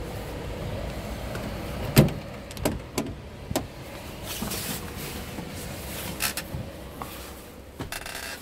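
Clunks and knocks from a Scania truck's cab door being opened and someone climbing into the cab. The loudest is a sharp knock about two seconds in, followed by a quick run of smaller clicks and a few more later, over a low steady rumble.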